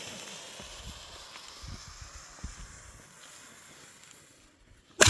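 A one-shot red crackling firework: its lit fuse hisses, fading over about four seconds, then a single sharp bang near the end as the shot fires.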